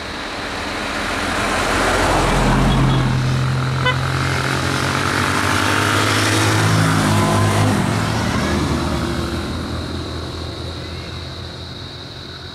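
Vans driving slowly past close by: engine hum and tyre noise on the road swelling twice, about two and a half and six and a half seconds in, then fading away. A short click about four seconds in.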